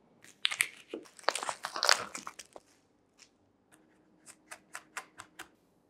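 A burst of crinkly clattering handling noise, then a quick run of knife strokes mincing garlic on a wooden cutting board, about five sharp chops a second.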